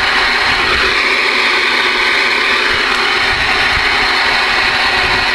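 CB radio receiver on AM with the squelch open, giving a loud, steady hiss of band noise from the antenna, with faint whistling tones from distant carriers in the first half.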